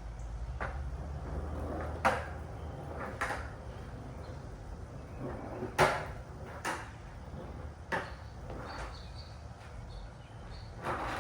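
Skateboard rolling on pavement with a low rumble, broken by about eight sharp clacks roughly a second apart.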